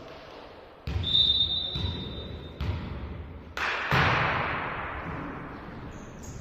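A volleyball is struck during a rally in a reverberant sports hall. Several sharp hits ring out, the loudest pair coming about four seconds in. A short, steady, high-pitched tone sounds just after the hit about a second in.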